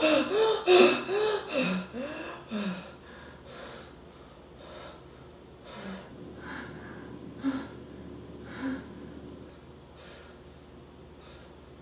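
A young man gasping and breathing hard in shock: a quick run of short voiced gasps at first, then slower, fainter breaths about once a second.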